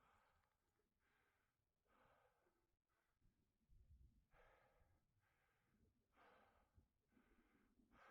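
Faint, heavy rhythmic breathing of a person exerting themselves, about one breath a second.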